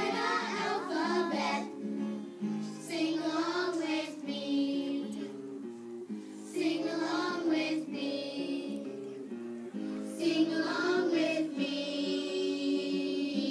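Young children singing an alphabet song together in phrases, over a steady instrumental backing that carries on between their lines.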